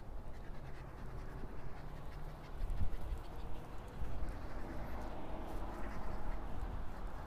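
Shiba Inu panting, over a low rumble that gets louder about two and a half seconds in.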